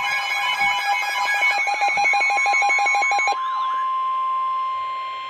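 Emergency alert attention tone: a warbling, rapidly pulsing electronic alarm that cuts off a little over three seconds in, leaving one steady high tone. It announces a severe thunderstorm warning message.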